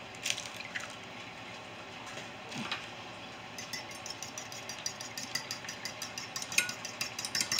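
Eggs being beaten with a fork in a hard serving dish: a fast, even clicking of the fork against the dish that starts about three and a half seconds in. Before it, a few light separate taps and knocks.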